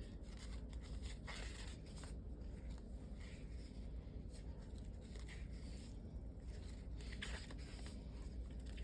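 Faint, scattered rustling and light handling of sticker sheets and their packaging, over a steady low hum.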